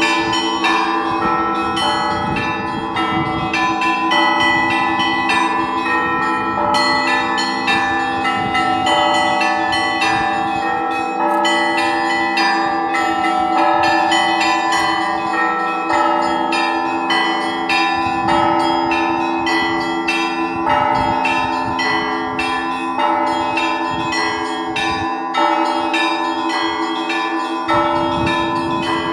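Church bells ringing together: many bells struck in quick, dense succession over the steady hum of lower bells.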